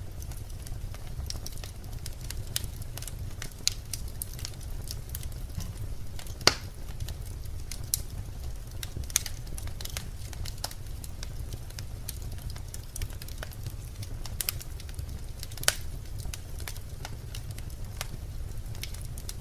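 Birch logs burning in a fireplace: a steady low rumble of the flames under irregular crackling and popping, with the loudest sharp snaps about six and a half seconds in and again near sixteen seconds.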